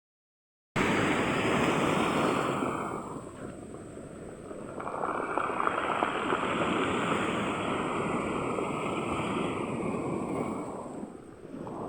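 Ocean waves breaking and washing up on the shore: one wave rushes in about a second in and eases off, then a second surges in around five seconds in and runs on for several seconds before fading.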